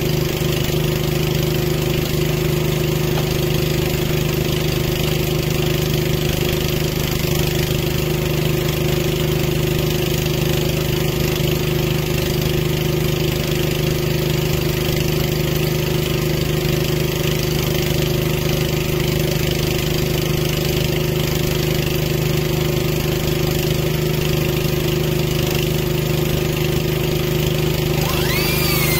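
Small engine of a towable boom lift running steadily at idle, an even, unchanging hum. Near the end a higher whine starts up over it.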